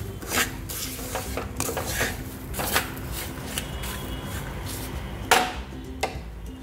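A spatula stirring semolina with vegetables and nuts in a kadai, scraping and knocking against the pan in irregular strokes. The loudest knock comes about five seconds in.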